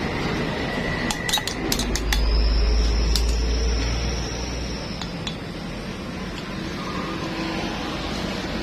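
Light metallic clinks of engine parts and tools being handled during a motorcycle engine rebuild, over a steady background hum. Partway through, a louder low hum with a faint high whine swells for about three seconds.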